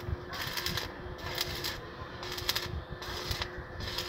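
Stick arc welding on steel square tubing: the electrode's arc crackles in short bursts about every second, broken by brief gaps, over a faint steady hum.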